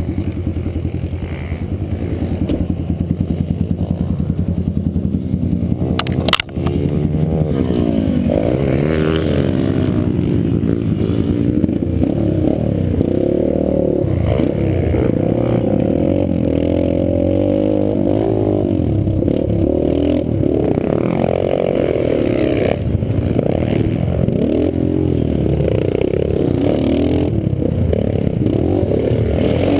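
Pit bike's small single-cylinder engine running, then revving up and down repeatedly as it rides the track. A single sharp knock about six seconds in.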